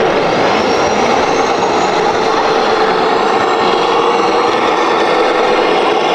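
Radio-controlled scale model's electric motor and gearbox running, with a high whine that rises in pitch over the first second or so over a steady mechanical noise.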